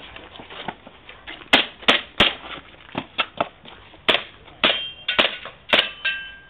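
Airsoft pistol fired rapidly, about ten sharp cracks starting about a second and a half in. Several later hits are followed by the brief ringing of metal plate targets.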